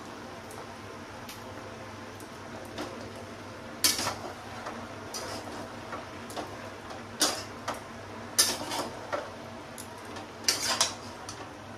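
Metal spatula clanking and scraping in a kadai as a pan of mixed vegetables is stirred, with sharp knocks at irregular intervals over a faint steady hiss.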